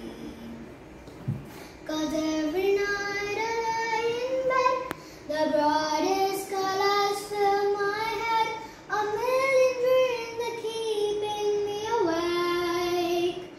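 A young girl singing solo in long held notes, starting about two seconds in, with short pauses for breath twice along the way.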